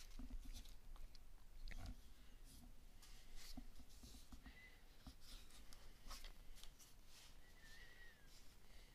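Near silence: faint room hum with scattered light rustles and small knocks from handling the tablet's keyboard dock, and two brief faint high whines, one about halfway through and a wavering one near the end.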